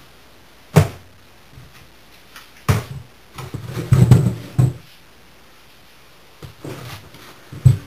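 Heavy wooden knocks and thumps from a plywood wedging table, weighted down with clay, as it is pushed and jostled to test how steady it is. There are single knocks about a second in and near three seconds, a quick cluster around four seconds, and one more near the end.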